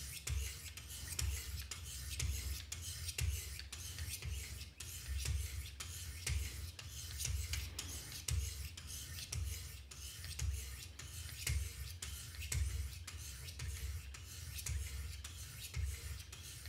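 Diamond stones of a Wicked Edge guided sharpener stroked along the steel edge of a Benchmade Mini Reflex II knife blade, a rhythmic rasping scrape. The strokes come evenly, a little more than one a second.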